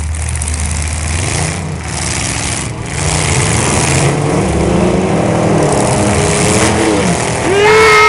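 Demolition derby car engines revving hard as the cars shove against each other, the engine note rising and falling. A loud shout comes near the end.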